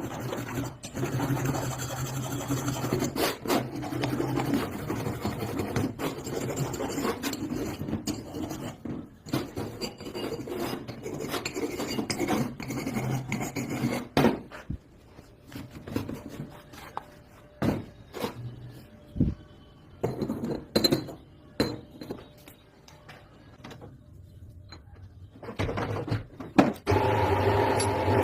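Metal being worked with a hand file: steady rasping strokes for about the first half. Then come scattered knocks and clinks of tools on metal, and near the end a machine's motor starts and runs steadily.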